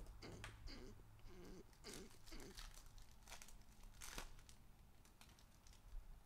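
Foil wrapper of an Upper Deck SPX hockey card pack being torn open and crinkled by hand: faint short tearing and crinkling rustles, the loudest about two and four seconds in.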